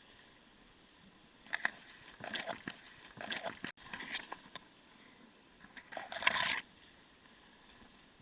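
Two bursts of irregular clicking, rattling and scraping, like small objects being handled. The first lasts a couple of seconds, starting about a second and a half in; the second is shorter, near the end.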